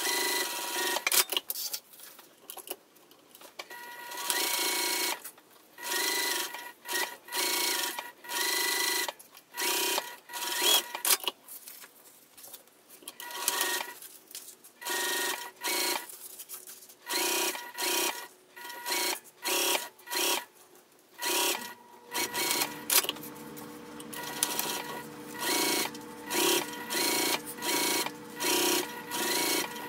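Juki sewing machine stitching through zipper tape and fabric in many short runs, stopping and starting every second or two.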